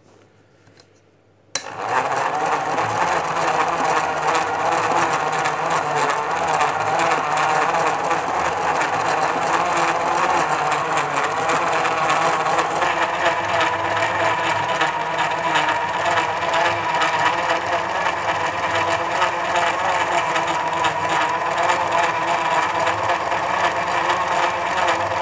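Newman Sinclair NS400 35mm cine camera running without film: its electric drive, claw pull-down and mirror shutter make a steady, fast mechanical chatter that starts abruptly about a second and a half in.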